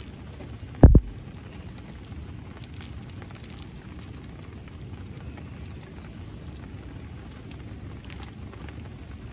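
Steady rain with scattered faint ticks. One short, loud low thump about a second in.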